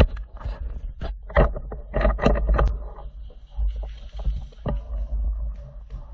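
Irregular knocks and rustling over a steady low rumble, the sound of movement and handling close to the microphone.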